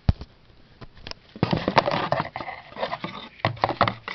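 Handling noise while unpacking a microphone and its cables: a sharp thump just after the start, then clicks, rustling of packaging and more knocks and clicks near the end.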